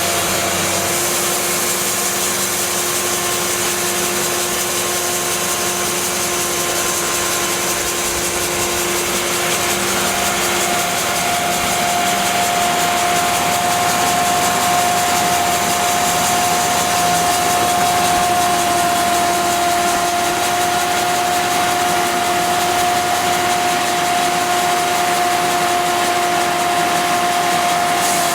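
Cook's AC3662 bandsaw mill running on its 62 hp Perkins diesel, the band blade sawing through a log with a steady whine. About ten seconds in the pitch of the whine shifts and it gets a little louder.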